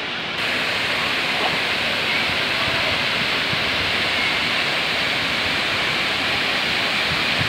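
Water pouring down the stepped cascade fountain, a steady rushing hiss that becomes louder about half a second in.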